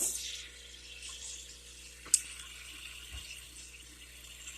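Water trickling and splashing steadily in a small aquarium, from the tank's filter and bubbler, louder in the first half second, with a single sharp click about two seconds in.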